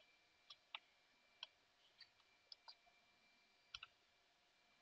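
Faint, scattered computer keyboard keystrokes: about eight separate clicks, some in quick pairs, with gaps of up to a second between them.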